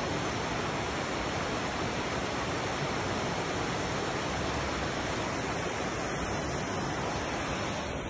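Waterfall cascading over rocks: a steady, dense rush of falling water.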